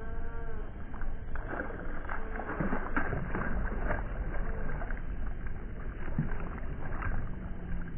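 A hooked small speckled trout thrashing at the surface beside a kayak, a run of sharp splashes that thins out after a few seconds, over a steady low rumble.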